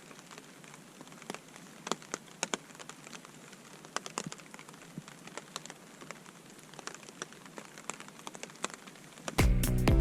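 Rain falling, with scattered drops tapping irregularly. Music starts abruptly about nine seconds in and is louder than the rain.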